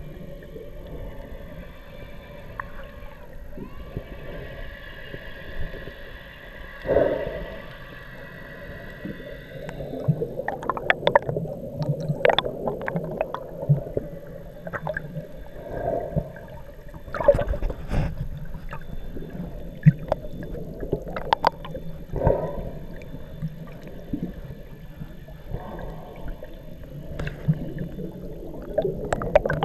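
Underwater sound of scuba divers' exhaust bubbles rising past the camera: a steady gurgling wash with many sharp pops and clicks, which grow denser from about ten seconds in. A faint steady humming tone is heard underneath in the first part.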